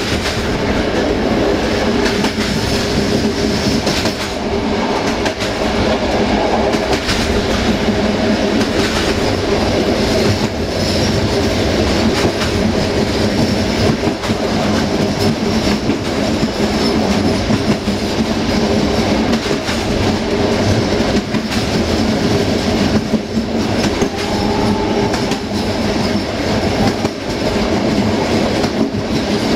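Passenger train running along the track: a steady rumble of wheels on rail, with clacks as the wheels pass over rail joints.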